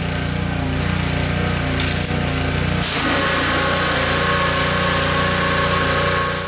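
Pressure washer running with a steady motor drone. About three seconds in the trigger opens and a loud hiss of high-pressure water spray joins it, blasting dust and mud off a golf cart's bare chassis.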